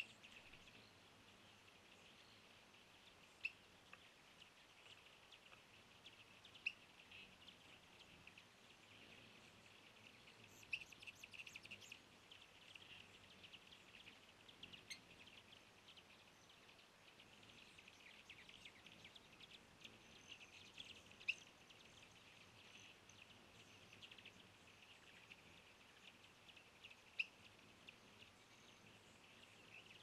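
Faint outdoor birdsong: small birds chirping and twittering steadily, with a few sharper single chips standing out now and then.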